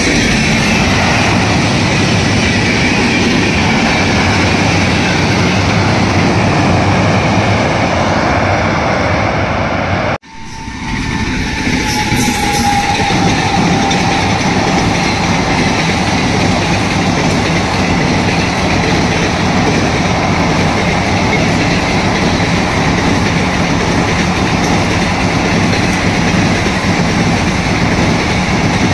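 Passenger train coaches rolling across a steel truss railway bridge: a loud, steady rumble and clatter of wheels on rails, with a faint high whine over it. The sound drops out suddenly for a moment about ten seconds in, then picks up again as the next train crosses.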